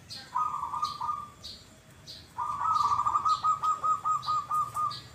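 Zebra dove (perkutut) cooing: a short phrase about half a second in, then a longer, louder phrase from about two and a half seconds in that ends in a quick run of clipped coos. A higher-pitched bird chirp repeats roughly every half second behind it.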